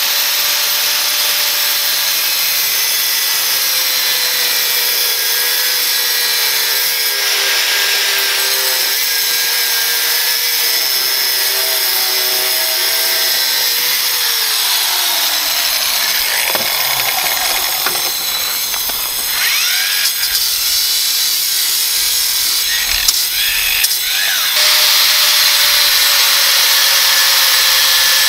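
Angle grinder with a Graff Black diamond cut-off wheel cutting flat steel bar: steady motor whine over the hiss of the cut. About 15 s in the motor's pitch slides down as it winds down, then it picks up again; about 25 s in a louder steady cut begins, an angle grinder with an abrasive cut-off wheel going through steel angle.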